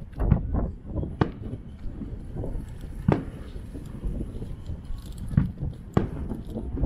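Aerial firework shells bursting: a series of sharp bangs one to two seconds apart, each followed by a low rumble.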